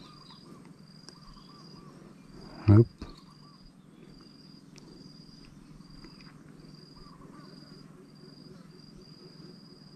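An insect calling over and over, a short high-pitched buzz repeated about every three-quarters of a second. A single short, loud thump comes nearly three seconds in.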